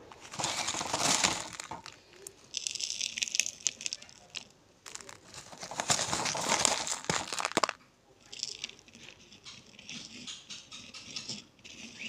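Balls of pressed white slate-pencil powder crushed and crumbled by hand in a bowl: gritty, crackling crunches in three long bursts, then lighter scratchy crumbling of the loose bits in the last few seconds.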